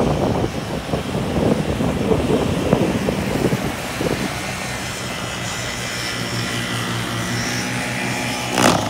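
Paramotor engine and propeller running steadily with a low hum, mixed with the rush of surf and wind. A loud sudden rush comes near the end.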